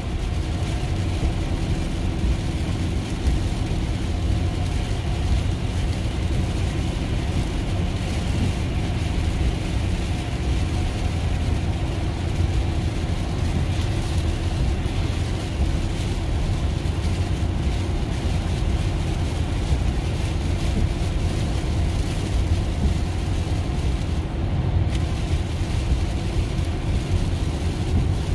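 Steady road noise inside a Tesla's cabin on a wet highway: a constant low rumble with tyre noise from the rain-soaked pavement.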